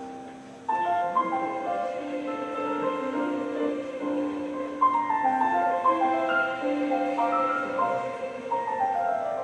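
Mixed high-school choir singing held chords, coming in about a second in after a brief lull.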